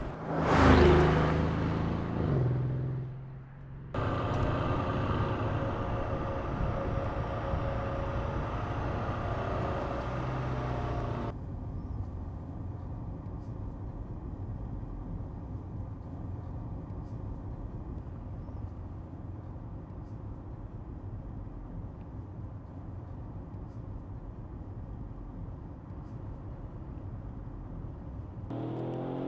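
Mercedes-AMG GLE 63 S's 5.5-litre twin-turbo V8 sweeping past at speed, its note dropping in pitch as it goes by, then the engine running with a steady note. About eleven seconds in it changes to a quieter, steady engine and road drone heard from inside the cabin.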